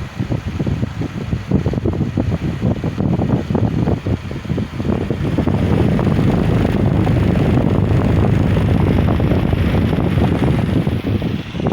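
Electric fan running, its airflow buffeting the microphone as a loud rushing noise, gusty at first and steadier from about halfway through.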